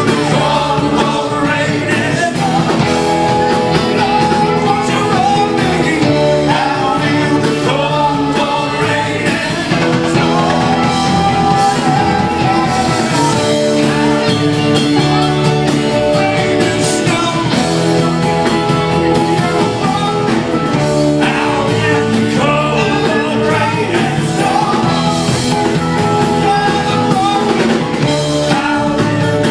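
Live rock band playing: electric guitars over bass and drums, loud and continuous.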